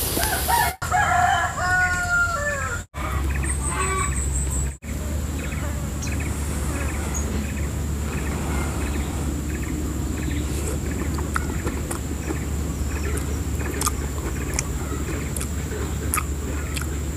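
A rooster crows once near the start, a drawn-out call falling in pitch, followed by a steady low rumble with faint, evenly spaced calls or clucks.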